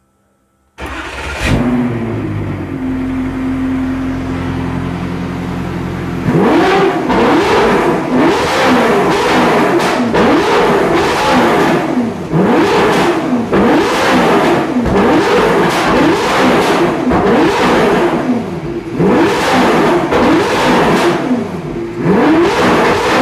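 Car engine idling with a steady note, then revved hard again and again from about six seconds in, each rev rising and dropping back in quick succession.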